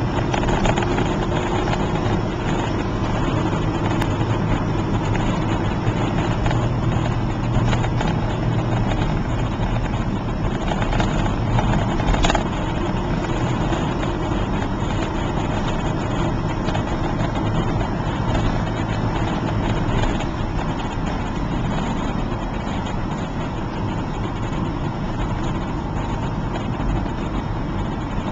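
Steady car-interior road noise while driving: engine and tyre rumble heard from inside the cabin, with a brief click about twelve seconds in.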